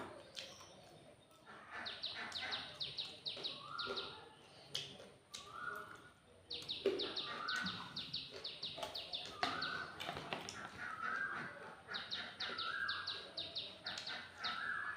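Birds calling. One repeats a short, steady note about once a second, while rapid chattering runs of high notes come and go over it.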